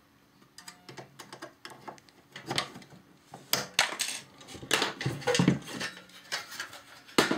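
Xbox 360 plastic case being pried and pulled apart by hand with a tool: a string of irregular plastic clicks, knocks and rattles, getting busier after about two and a half seconds, with a sharp knock near the end as the case comes open.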